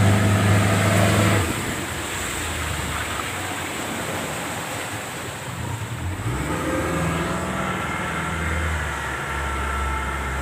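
A fishing boat's engine running steadily, then eased back about a second and a half in, leaving the hiss of wind and water. The engine picks up again past the middle.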